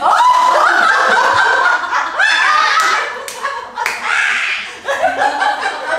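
A group of women laughing loudly together, with high-pitched peals of laughter. A couple of sharp hand claps come about three seconds in.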